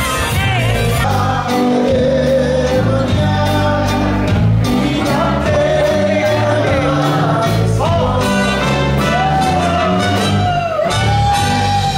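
Music: a song with a singing voice over a steady bass line and beat.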